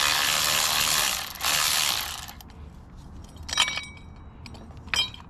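Milwaukee cordless ratchet spinning out the 9/16 bolt of the track-adjuster cover plate on a Kubota KX91 mini excavator: a loud whir lasting about two seconds, with a short break partway. Two light metal clinks follow.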